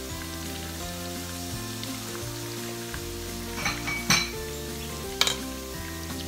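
Onions, garlic and sun-dried tomatoes sizzling in a frying pan after orange juice has been poured in, over soft background music. A few sharp clinks of utensils come about four and five seconds in.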